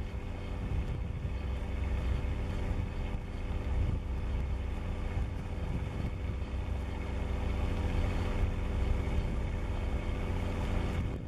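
A cruise ship's engine running with a steady low drone and an even hum of several steady tones above it.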